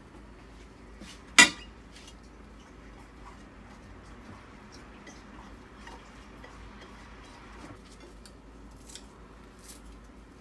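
Kitchen utensils clinking against a stainless steel mixing bowl while a shredded potato salad is tossed: one sharp clink about a second and a half in, then light scattered clicks and taps.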